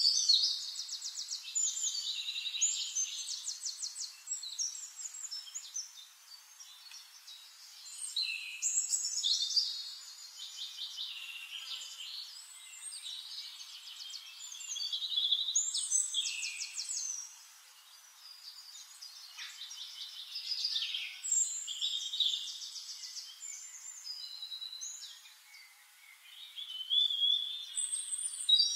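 Songbird singing in repeated phrases of rapid high trills and chirps, each a few seconds long, with short pauses between.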